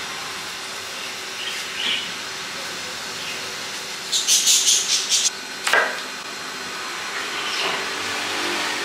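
Knife peeling the skin off a round fruit: a quick run of about six sharp scraping strokes a little past the middle, then one longer stroke, over a steady background hiss.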